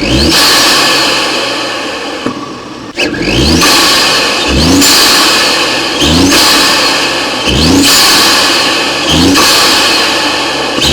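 Audi SQ5's 3.0T turbocharged V6 (EA839) with an open velocity-stack intake, revved hard in about seven quick blips. Each rev rises in pitch with a climbing turbo spool whistle and intake whoosh.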